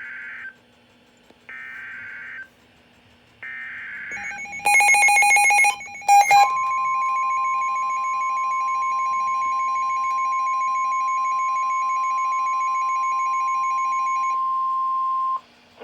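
NOAA Weather Radio alert sequence: three short bursts of screeching SAME data tones about a second apart, then a loud rapid beeping. Then the steady 1050 Hz warning alarm tone sounds for about nine seconds and cuts off abruptly, announcing a severe thunderstorm warning.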